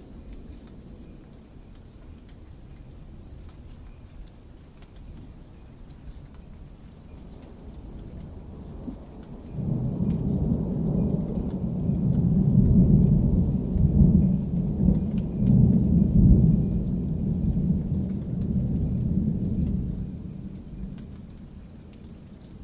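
A long roll of thunder: a low rumble swells, breaks loud a little under halfway through, rolls on for about ten seconds and dies away near the end. Light rain ticks underneath.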